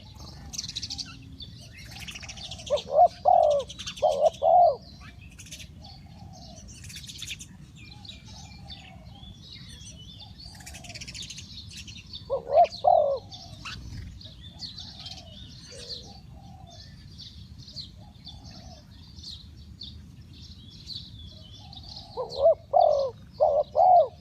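Spotted dove cooing in short phrases of three or four notes, three times: a few seconds in, about halfway, and near the end. Other small birds chirp faintly throughout.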